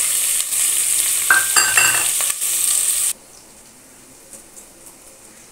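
Chopped onions dropped into hot oil in a pot, sizzling loudly as they start to fry, with a few metal clinks near the middle. The sizzling cuts off abruptly about three seconds in.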